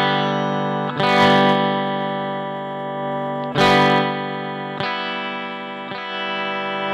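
Clean electric guitar through a Carl Martin Compressor/Limiter pedal with the compression turned down, playing chords that are struck about five times and left to ring on.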